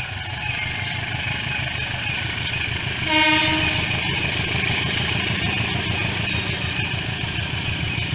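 Diesel locomotive engine running with a steady low rumble, and one short train horn blast, under a second long, about three seconds in.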